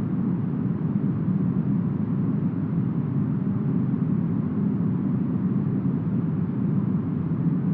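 Steady brown noise: an even, deep hiss with most of its weight low down. It has no gusts, swells or breaks.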